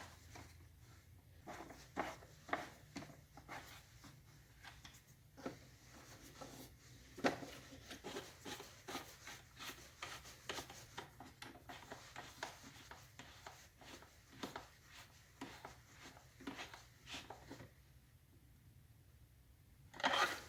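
Light, irregular clicks, taps and scrapes of hands and small tools working on the pancake air compressor's plastic housing and screws.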